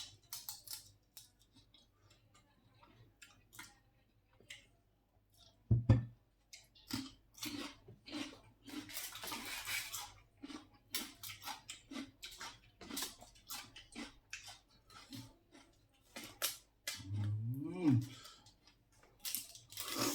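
Someone eating shellfish at close range: many short clicks and crackles of shell being handled and chewing, with a loud knock about six seconds in and a short hummed 'mm' near the end.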